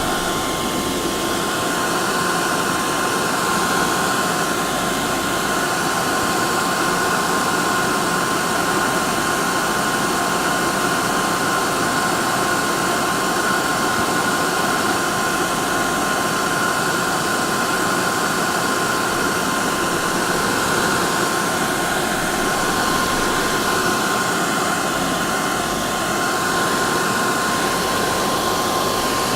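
Hair dryer running continuously: a steady rush of air with a constant motor whine.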